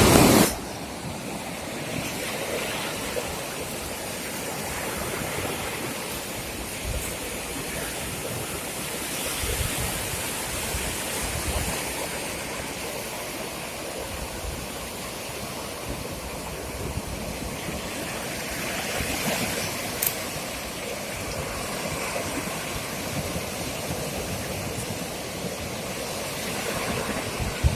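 Mediterranean sea waves washing onto a sandy beach, a steady surf wash that swells louder twice, with a brief click about two-thirds of the way through.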